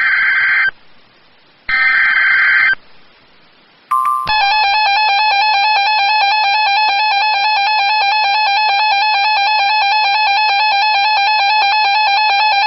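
Emergency Alert System SAME header: the tail of one data burst and then a full one-second burst a second later, followed after a short pause by the steady EAS attention tone from about four seconds in. Together they announce an incoming severe thunderstorm warning.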